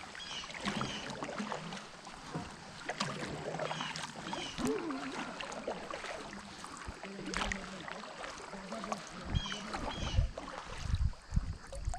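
Kayak being paddled on a lake: the paddle blades dipping and splashing, with small knocks from the paddle and hull, and a few stronger low thumps near the end.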